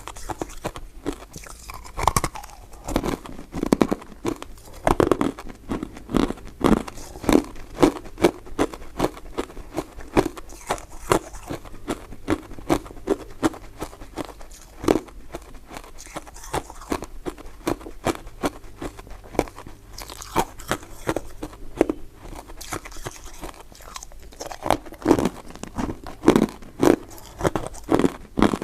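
Close-miked chewing and biting of soft, chewy powder-coated mint sweets: a steady run of short, sharp mouth sounds, several a second, with louder clusters near the start and near the end.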